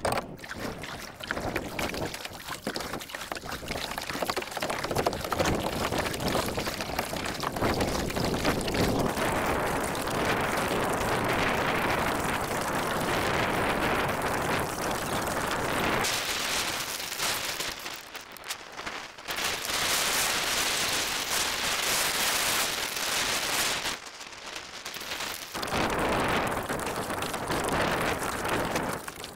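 Kayak paddle strokes splashing water, with wind buffeting the microphone. The noise drops briefly twice, around the middle and again a few seconds later.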